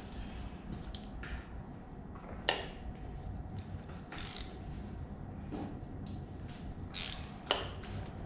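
Hand tools working on the exhaust manifold bolts of a Ford 302 V8: irregular metal clicks and ratcheting, with two sharp knocks, one about two and a half seconds in and one near the end.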